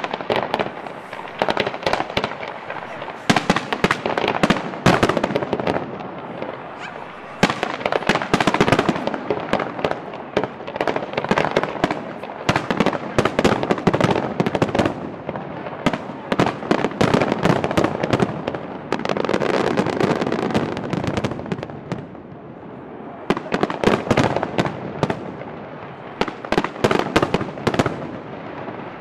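Aerial fireworks bursting in dense volleys of bangs and crackling, with short lulls between the volleys.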